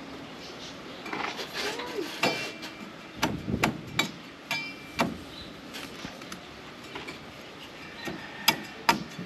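Machete chopping into a green coconut's husk, trimming the green away from the top: a series of sharp strikes, several spaced about half a second apart about three to five seconds in, and two louder ones near the end.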